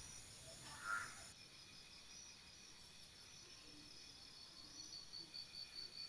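Insects chirping in a steady high, even pulse of about four chirps a second, with one short louder call about a second in.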